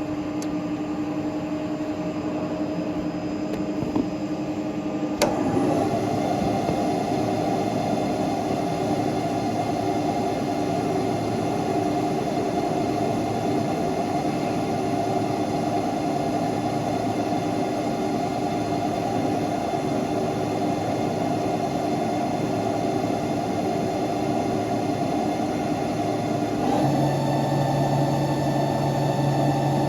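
CNC lathe running while machining a pinion: a steady motor and spindle hum with several held tones. A sharp click about five seconds in is followed by a louder, fuller sound, and a lower tone joins near the end as the machine changes speed or operation.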